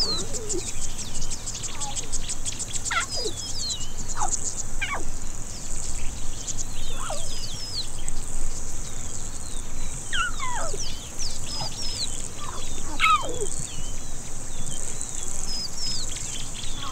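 Lion cubs giving a dozen or so high mewing calls, each sliding steeply down in pitch, while they move about near their mother. Short high bird chirps and a steady high trill of insects run underneath.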